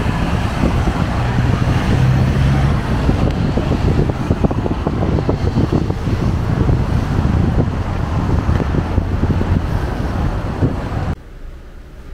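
Wind buffeting the microphone over the low running rumble of a steam locomotive and its coaches. About eleven seconds in it cuts off suddenly to much quieter room tone.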